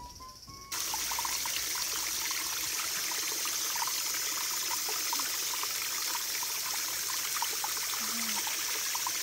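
A small stream of water trickling and splashing over rocks, a steady wash with many small droplet sounds. Faint background music stops less than a second in, just as the water sound starts.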